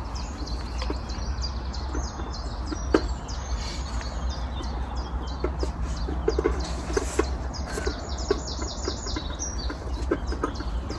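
Birds chirping over a steady low rumble, with scattered clicks and knocks.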